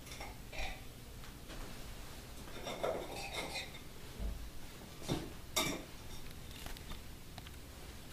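Knife and fork scraping and clinking on a plate as food is cut, a few separate scrapes and clicks, the loudest about five seconds in, over a faint steady hum.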